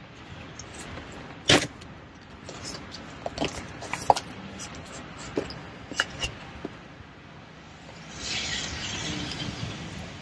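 Handling noise from unpacking two aluminium folding shovels from their plastic packaging tray: a sharp click about a second and a half in, then scattered smaller clicks and knocks, and a rustling scrape near the end.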